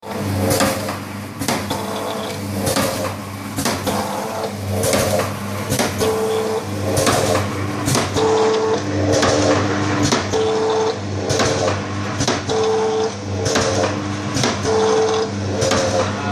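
Automatic vertical sachet packing machine filling and sealing chili sauce sachets: a steady motor hum under a regular clacking of the sealing and cutting mechanism, with a short whining tone that recurs about once a second as each cycle runs.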